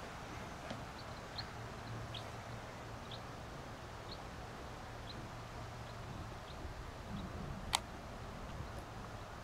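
A small bird calling outdoors with short, high chirps about once a second, over a steady low background hum. One sharp click near the end.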